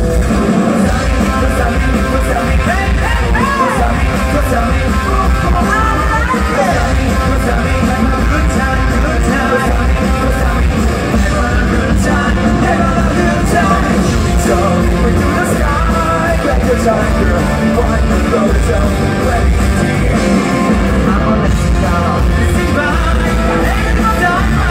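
Rock band playing live, with electric guitars, bass and drums under a man singing. Loud and continuous throughout.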